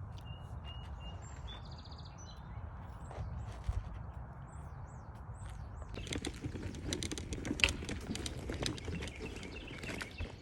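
Small birds chirping, with short high chirps and a brief trill, over a steady low rumble. About six seconds in, a dense crackling rustle with many sharp clicks starts and goes on.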